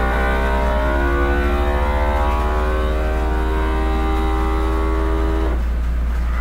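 FoodSaver vacuum sealer's pump running with a steady whine whose pitch shifts as it draws the air out of the bag, then cutting off suddenly about five and a half seconds in, over a constant low hum.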